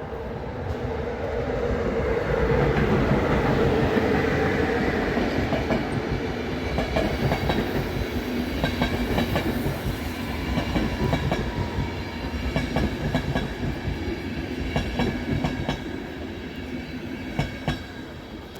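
A passenger train hauled by a class 060-EA electric locomotive passes close by. The sound swells as the locomotive goes past, then the coaches follow with a long run of regular wheel clicks over the rail joints that fades near the end.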